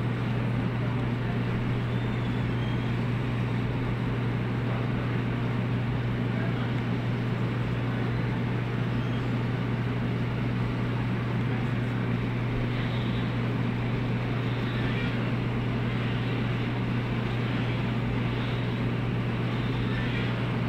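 Steady low hum under an even hiss, unchanging throughout, with no distinct events.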